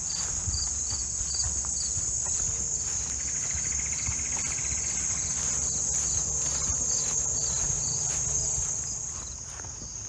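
Steady high-pitched insect chorus, with a second insect chirping about three times a second, over footsteps.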